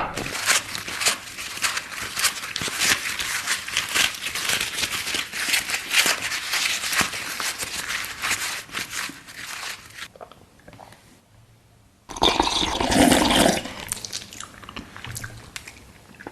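Close-miked eating: dense, crackly chewing and crunching for about ten seconds, then a short pause, then a louder, fuller burst of chewing that fades off.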